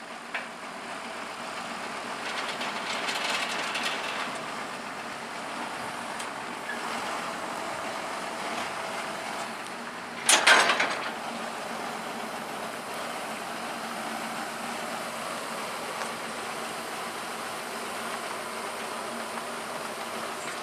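John Deere tractor's diesel engine running steadily, with a brief loud burst of noise about ten seconds in.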